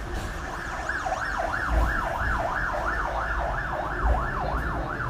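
Fire engine siren in a fast yelp, its pitch sweeping up and down about three times a second, growing loud about a second in, over the hum of street traffic.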